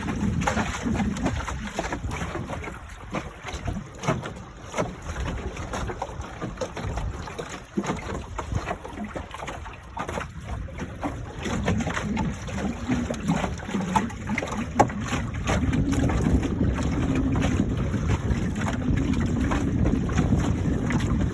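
Wind buffeting the microphone over water rushing and splashing along the hull of a Y-15 sailing dinghy under sail. Gusty and uneven, growing louder after about eleven seconds.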